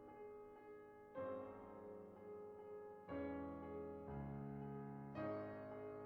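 Slow, gentle piano music: sustained chords, a new one struck about every two seconds and left to fade.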